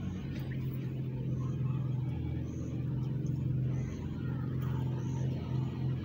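An engine running steadily with a low hum, with faint short high chirps over it about once a second.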